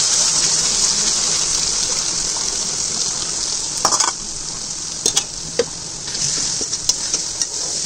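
Onion and spice masala sizzling in hot oil in a pan while a spoon stirs it, knocking against the pan a few times. The sizzle eases about four seconds in.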